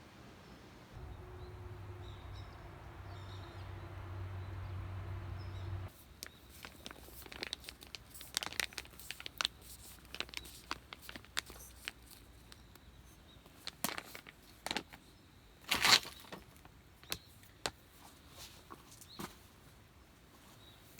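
A low steady hum for a few seconds that cuts off suddenly, then a run of crinkling, rustling and small clicks of things being handled, with one louder crinkle about sixteen seconds in.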